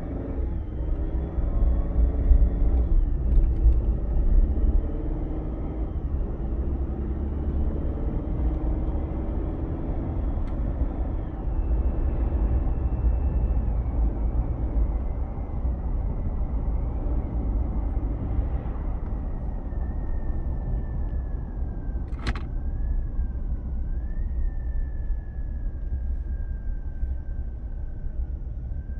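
Cabin sound of a 2022 Chevy Silverado with the 2.7-litre turbo four-cylinder while driving: a steady low rumble with a thin high tone that drifts slowly down in pitch. This is the humming noise the owner suspects is a problem, though others have told him it is normal for the turbo engine. A single sharp click about 22 seconds in.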